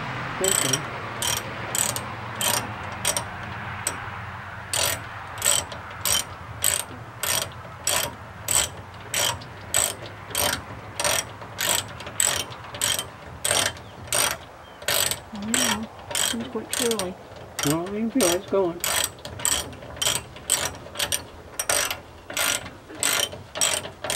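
A ratchet clicking in a long, even run, about two clicks a second, as it is worked to tighten.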